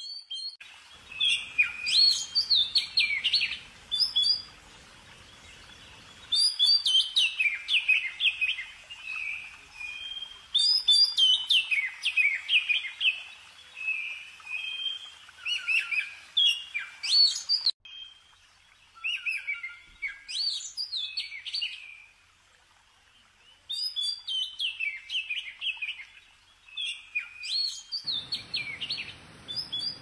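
A small songbird singing: repeated bright phrases of quick, sharply falling whistled notes, each phrase a second or two long, with short pauses between.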